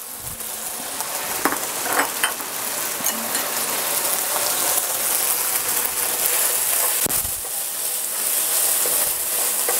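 Sliced beef with scallions, ginger, chili and mushrooms sizzling in hot oil in a frying pan as it is stir-fried with a wooden spatula. The sizzle grows gradually louder, with a few light knocks of the spatula against the pan.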